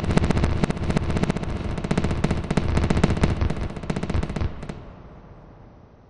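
Firework crackling: a rapid, dense run of sharp pops like automatic gunfire that stops about four and a half seconds in, then a fading rumble.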